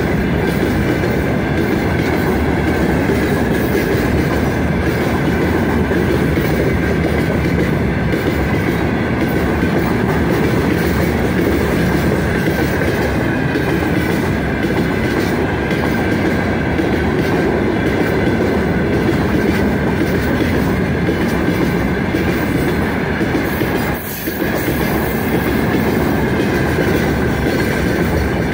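Freight train of open gondola wagons rolling past close by: a steady loud rumble of steel wheels on the rails with clickety-clack over the track and a steady high-pitched ring above it. The level dips briefly near the end.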